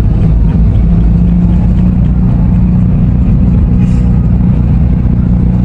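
Steady low rumble of a car heard from inside the cabin: engine hum and road noise.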